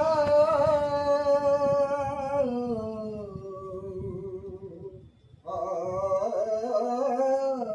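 An elderly man singing long, drawn-out notes without words: two slow held phrases, the first sliding down in pitch partway through, with a short breath between them, as the opening of a Marathi song.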